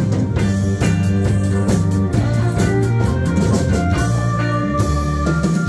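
Live band of drum kit, electric guitar, bass guitar and keyboard playing an upbeat trot song, with steady drum beats under sustained melody notes.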